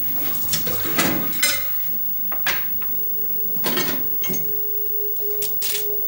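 Dishes and cutlery knocking and clinking: a string of separate clinks and clatters at irregular intervals.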